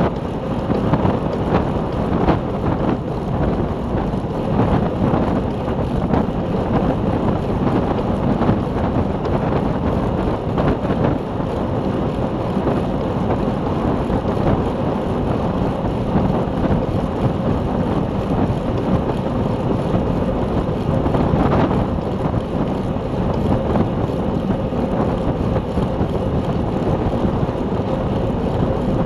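Steady wind rushing over the microphone of a camera riding on a racing bicycle at speed, a continuous low buffeting roar.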